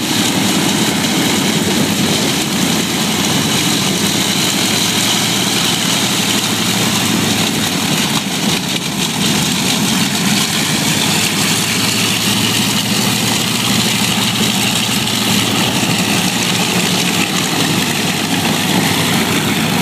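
Twin radial engines of a B-25 Mitchell bomber running steadily at low taxi power as it rolls past, a constant loud engine drone with no change in pitch.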